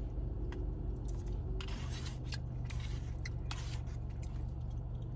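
Plastic fork scraping and clicking against a plastic takeout bowl while scooping macaroni: a scatter of short, sharp scrapes and taps over a steady low hum.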